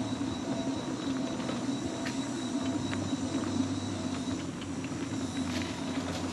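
Electric mobility scooter driving along, its motor and wheels humming steadily, with a few faint ticks and clicks near the end.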